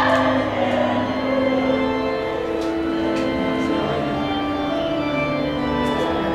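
Music with long held notes that shift to new pitches every second or two, played back from a media player.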